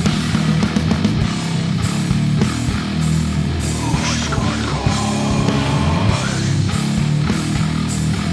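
Heavy instrumental rock from a bass-and-drums duo: effects-processed bass guitar holding low notes over steady drumming, with a wavering, gliding higher sound about halfway through.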